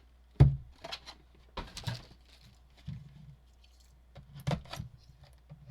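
Trading cards and pack wrappers being handled on a tabletop: a few soft taps and rustles at irregular moments, the loudest about half a second in.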